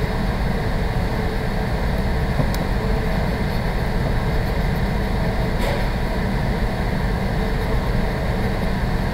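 Steady, unchanging low rumbling hum of background machine or room noise, with two faint ticks.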